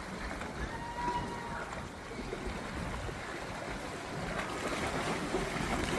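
Wind and water noise on a moving boat, with one high call held for about a second, falling slightly at its end, early on.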